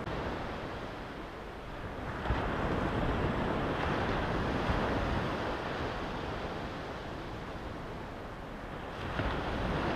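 Surf breaking and washing up a sandy beach, a steady rush that swells about two seconds in and rises and falls after that, with some wind on the microphone.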